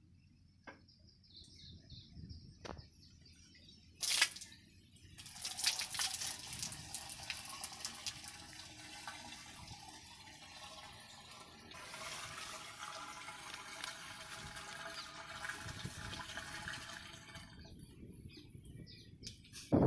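Water poured from a bucket into the casing of a centrifugal water pump, splashing and gurgling steadily for about twelve seconds as the pump is primed before its diesel engine is started. A single sharp knock sounds just before the pouring begins.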